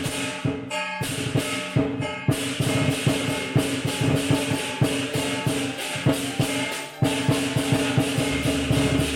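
Lion dance percussion playing: a drum beaten with clashing cymbals and ringing metal tones, in evenly spaced strokes about two a second at first, then a faster, denser beat from about two seconds in, briefly dropping away just before the seven-second mark.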